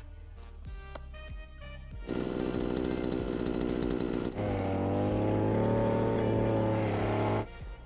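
Backpack petrol brush cutter running. From about two seconds in there is a rough, rapid buzz, then a steadier drone while it cuts grass, which stops abruptly near the end. Background music with a beat plays at the start.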